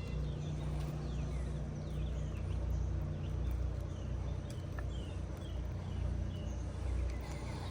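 Steady low rumble of wind on the microphone outdoors, with birds chirping repeatedly in short, quick falling notes.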